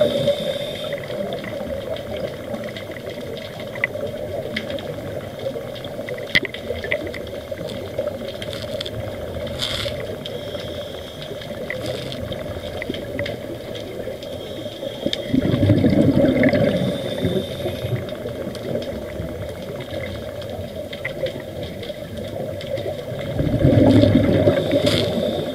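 Underwater: a scuba diver's exhaled bubbles rushing out of the regulator, loudest twice, about two-thirds of the way through and again near the end, over a steady watery background with scattered faint clicks.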